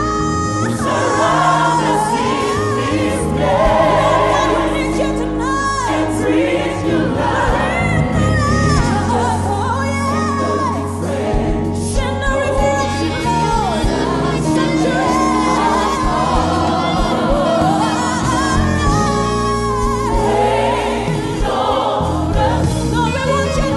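Live gospel music: a female solo singer singing over a large choir with instrumental backing.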